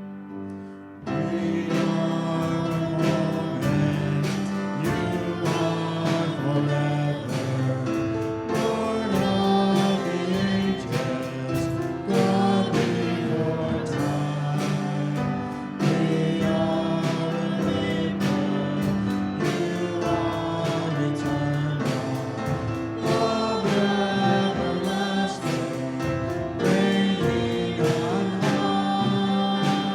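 Congregational worship song: a band with singing, starting in full about a second in after a few soft keyboard notes, with a steady beat.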